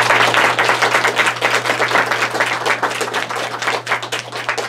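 Audience applauding, many hands clapping at once, the clapping slowly thinning toward the end.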